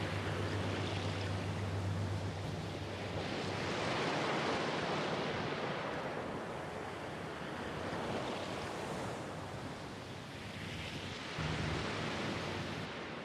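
Rushing water of a ship's wake churning behind the stern, swelling and easing every few seconds, over a low engine hum that is strongest at the start and comes back near the end.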